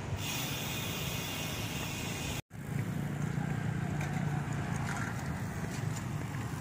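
Steady wind and road noise heard from a bicycle rolling along a concrete road, with a low rumble. The sound drops out for an instant about two and a half seconds in.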